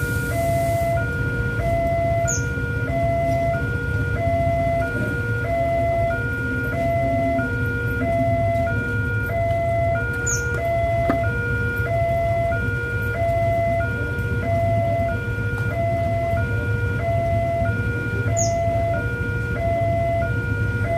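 Railway level-crossing electronic warning alarm sounding while the barrier is down, a two-tone signal alternating evenly about every half second. It warns that a train is approaching. A short high chirp comes three times, about eight seconds apart.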